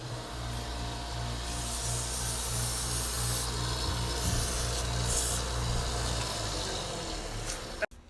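Electric sander motor running with a steady hum while the end of a thin wooden dowel is ground against the abrasive to a point, the rasping hiss swelling in patches as the dowel is pressed and turned. The machine stops near the end.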